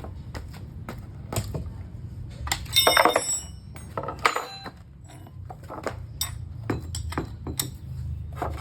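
Repeated light metallic clinks and taps, with two louder ringing clanks about three and four seconds in, over a steady low hum.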